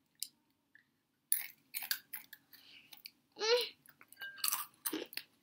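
Chewing and crunching of Takis, rolled corn tortilla chips, in short irregular crunches that start about a second in. A brief vocal sound comes about halfway through.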